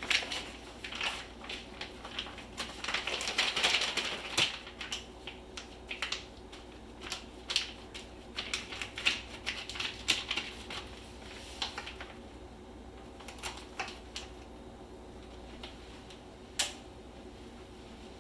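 Plastic vacuum-sealer bag crinkling and clicking in irregular bursts as it is handled and packed with ground deer meat, busiest in the first ten seconds and sparser after.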